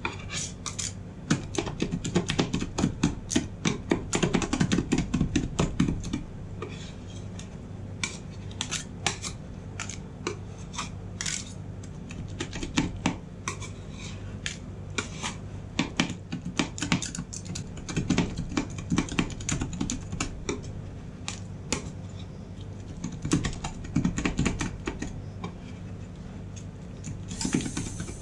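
Two steel spatulas chopping and tapping fast on a stainless-steel rolled-ice-cream cold plate, metal clicking on metal with scraping strokes, as chocolate and cookie pieces are chopped into the liquid ice-cream base. The tapping is densest for the first several seconds, then comes in sparser bursts. A steady low hum runs underneath.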